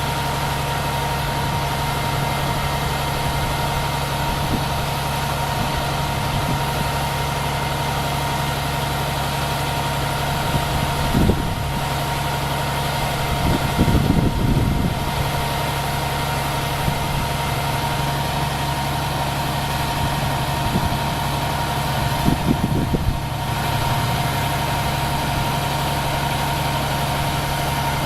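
A vehicle engine idling steadily with a constant low hum, with a few brief louder noises partway through and again near the end.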